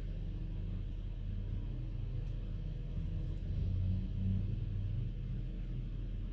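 Low steady rumble with a low hum beneath it, swelling briefly about four seconds in.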